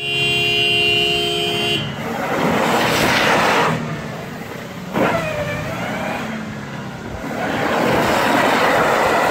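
Subaru Legacy sedan's engine revving under load in two long surges as the car claws its way up a muddy forest rut, with a sharp knock between them. A steady horn-like tone sounds for about the first two seconds.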